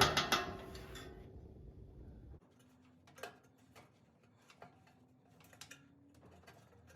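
Light clicks and taps of small heater parts and hardware being handled and fitted during reassembly, scattered irregularly. A low hum underneath stops abruptly about two and a half seconds in.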